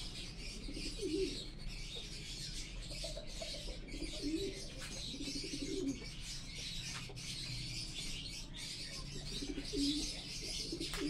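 Pigeons cooing in short, low phrases that recur every few seconds, over a steady high hiss.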